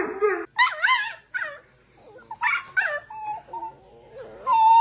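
A dog vocalizing in a 'talking' way: a series of short, wavering whines and yowls, then a long, steady whining howl that starts near the end.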